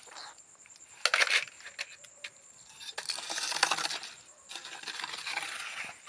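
A scoop scraping and shovelling wet, gritty mortar into a small metal bucket, heard as rough scrapes and clinking grit rattles. There is a short burst about a second in, a longer one from about three seconds in, and lighter scraping near the end.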